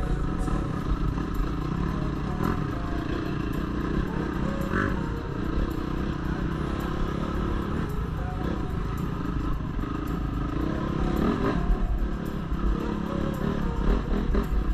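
Dirt bike engine running as the bike is ridden over a rocky trail, with scattered knocks and rattles from the rough ground.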